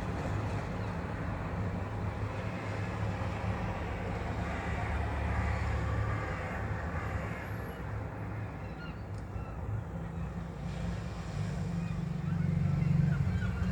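Outdoor seafront ambience: a steady low rumble and hiss, swelling a little about five seconds in and again near the end.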